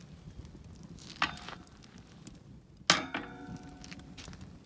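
Steel cooking grate of a campground fire ring clanking against the ring as it is swung on its hinge: a light clank about a second in, then a louder metallic clang about three seconds in that rings briefly.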